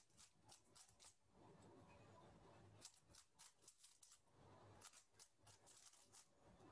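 Faint quick clicking of a plastic 3x3 Rubik's cube being turned during a speed solve. The clicks come in three quick runs with short pauses between them.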